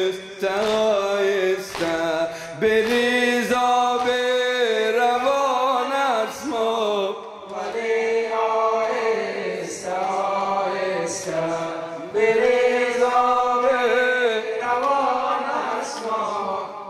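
Men chanting a Shia mourning lament (latmiya) in long, held melodic lines that rise and fall in pitch, with short pauses between phrases. A few sharp slaps of hands on chests cut through.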